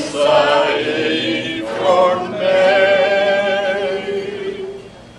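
A small group of men and women singing a cappella together, ending on a long held note that fades out near the end.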